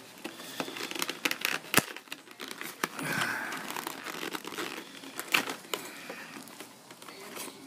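Stiff plastic clamshell packaging of a graphing calculator crinkling and crackling as it is cut and pried open with a knife and hands. Irregular sharp snaps run through it, the loudest a little under two seconds in.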